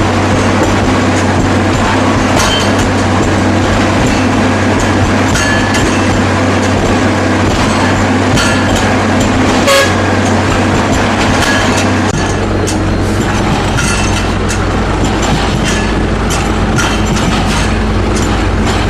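Hydraulic multiple-hammer concrete breaker working: a loud, steady machine drone with a low hum, broken by many sharp impacts of the hammers on concrete. The low rumble grows heavier about twelve seconds in.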